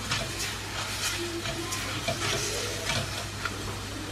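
Spiced mushroom and tomato masala sizzling in an open pressure cooker while a silicone spatula stirs it, with soft scrapes against the pan; the spices are being sautéed.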